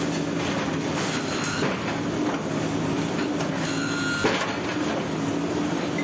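Diesel engines of hydraulic excavators running steadily as their arms break up a house wall, with repeated clatter and crashes of falling masonry and debris and one sharp bang about four seconds in.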